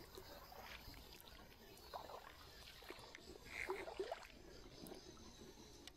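Faint sloshing and light splashing of water close by, in a few soft episodes about two seconds in and again between three and a half and four seconds in, with small clicks in between.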